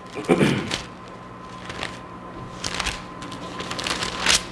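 Pages of a Bible being turned by hand: a few short papery rustles, spread out.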